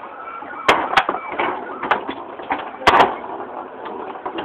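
Foosball table in play: several sharp knocks and clacks of the ball and rods against the players and table sides, the loudest about three seconds in.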